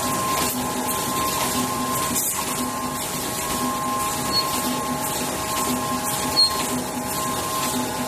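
Automatic full-servo plastic cosmetic tube screen printing machine running: a steady whine over a low pulsing hum, with two brief high chirps about four and six seconds in.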